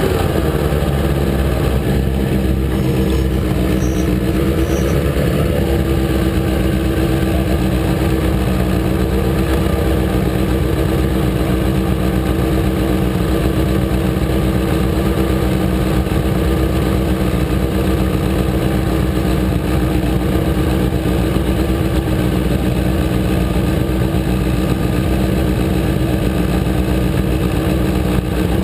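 Sport motorcycle engine heard from a camera mounted on the bike, its revs settling in the first moment, then idling steadily while the bike stands still.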